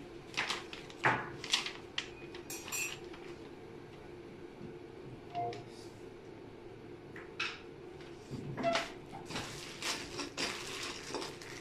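Scattered light clicks, clinks and rustles of storage-shelf parts and a paper instruction sheet being handled, with the sharpest knocks about a second in and again near the end.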